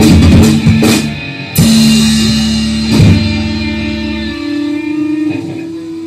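Rock band with electric guitars, bass guitar and drum kit playing the end of a song: full-band playing for about a second, then a final chord struck with a cymbal crash about one and a half seconds in and again at three seconds, the chords left ringing and slowly dying away. The low bass note stops a little after four seconds while a higher guitar note rings on until the sound cuts off.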